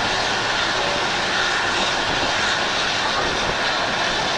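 Steady rushing noise of a train running at speed, heard from on board: wind and the rumble of wheels on the rails.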